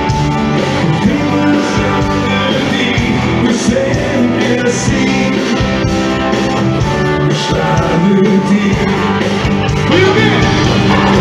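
Live rock band playing a song with singing and electric guitar, loud through the stage PA and heard from within the audience.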